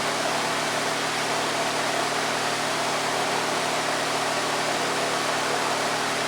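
Electric fan running steadily: an even hiss of moving air over a low, steady motor hum.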